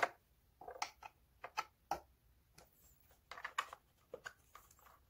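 Irregular light clicks and taps, about a dozen, of hard plastic parts and a metal hex key being handled while a gaming chair's plastic hinge cover is fitted; the sharpest click comes right at the start.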